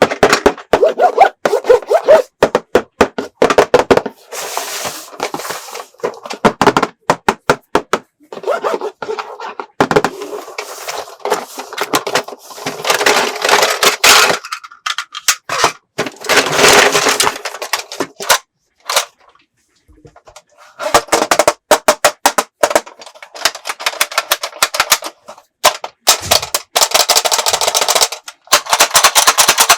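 Plastic toy pieces being handled: a quick, uneven string of clicks, knocks, rattles and scrapes, with a short lull about two-thirds through.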